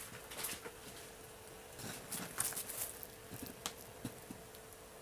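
Faint scattered taps and rustles of a gloved hand taking hold of a large wooden serving tray on a plastic-covered table to tilt it, with a small cluster of them about halfway through. A faint steady hum runs underneath.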